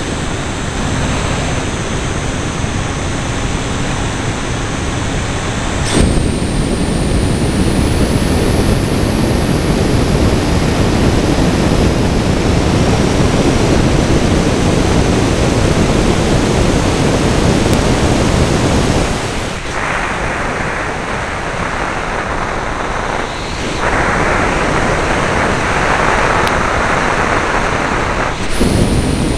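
Steady rush of wind and propeller noise picked up by the onboard camera of a radio-controlled model aircraft in flight, with a faint high motor whine. The noise steps up sharply about six seconds in, drops for a few seconds past the middle, then rises again.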